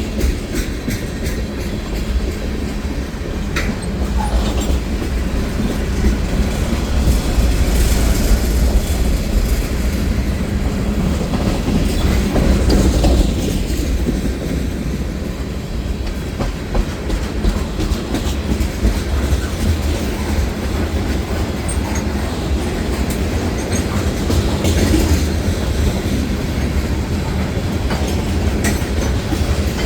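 Freight train cars rolling past, wheels clacking over the rail joints with a steady rumble.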